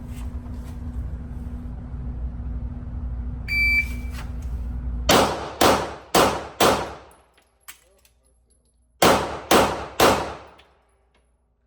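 Shot-timer start beep, then a handgun fired four times about half a second apart, a pause of about two seconds for a mandatory reload, and three more quick shots: a seven-round timed pistol drill at an indoor range.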